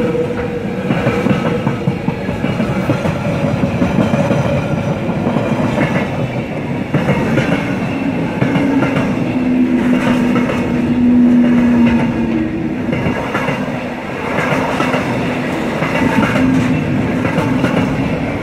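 Freight train of container and tank-container flat wagons rolling past close by: a steady rumble of steel wheels on rail with a rhythmic clickety-clack as the wheelsets pass, and a humming tone that comes and goes.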